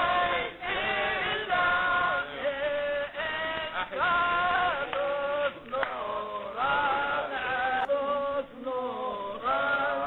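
A man singing a chant in long, held, wavering phrases with short breaks between them: the Muslim guard of the tzaddik's tomb. The sound is thin, as on an old camcorder soundtrack.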